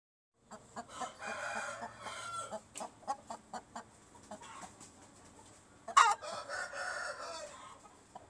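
Turki-breed game rooster crowing twice, each crow drawn out for about a second and a half. Between the crows come several sharp clicks, and a loud sharp knock comes just before the second crow.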